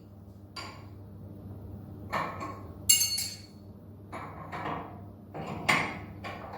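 Metal clinks and knocks while a 3 mm flat end mill is fitted in a CNC router's spindle during a tool change, about eight separate strikes, the loudest about three seconds in, over a steady low hum.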